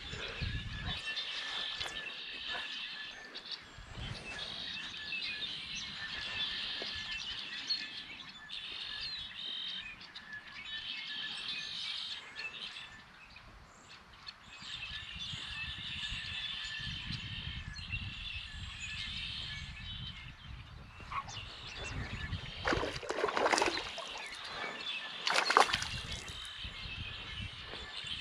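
A chorus of high animal calls from around a pond, repeating in phrases of a second or two, dies away about twenty seconds in. Near the end come a few loud, short scuffing noises.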